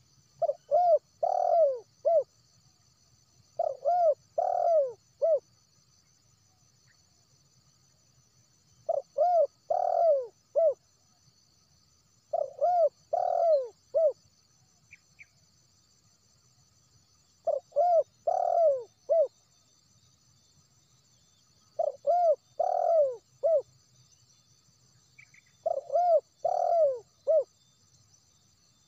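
Wild spotted dove cooing: seven phrases, each a quick run of four or five soft pitched coos, repeated every three to four seconds. A steady high insect drone runs underneath.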